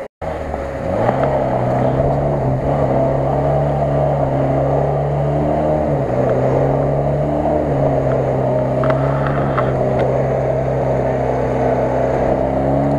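Off-road 4x4's engine held at high, steady revs as it drives through icy floodwater. The pitch climbs about a second in and shifts a few more times as the throttle changes.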